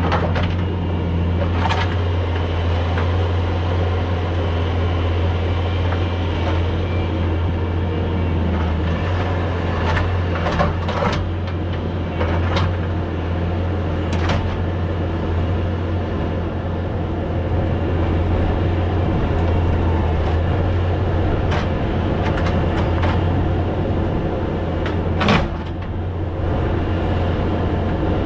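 Bobcat S570 skid steer's diesel engine running steadily under load while digging, with a few sharp knocks and scrapes as the Danuser Intimidator's pointed jaws work through rocky soil, the loudest about 25 seconds in.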